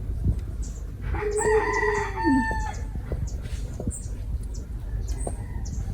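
An animal's single drawn-out call, held on one pitch for about a second, then falling at the end.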